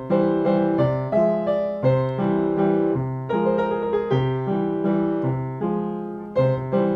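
Piano music: a steady run of struck notes, each ringing and fading, over a few lower notes.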